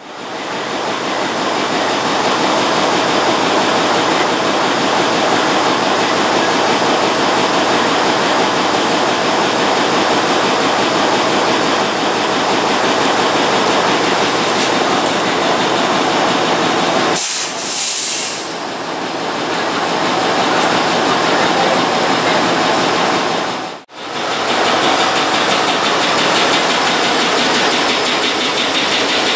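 Diesel engine of a Sri Lanka Railways Class M10A (WDM3D) locomotive running steadily, heard close up as a dense, even, loud noise with a lot of hiss. A short burst of high hiss stands out a little past halfway.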